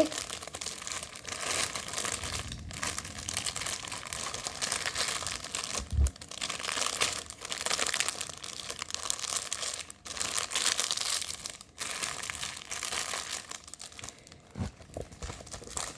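Plastic packaging being crinkled and rustled by hand as diamond-painting kits are packed away, with short pauses and a couple of soft thumps.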